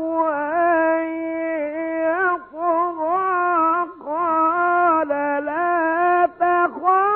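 A male Quran reciter's solo voice chanting Quranic verses in the melodic Egyptian mujawwad style, with long held, ornamented notes broken by a few short pauses between phrases.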